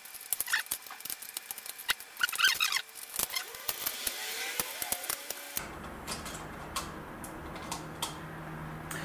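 Small sharp clicks and taps of plastic model-kit parts being handled and pressed together. The clicks are dense at first and grow sparser from about halfway.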